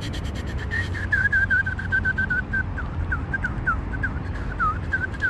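A spinning reel being wound in after a cast, ticking rapidly and steadily; the ticks fade out about four seconds in. Over it runs a string of short, high whistled notes, several ending in a quick downward slide.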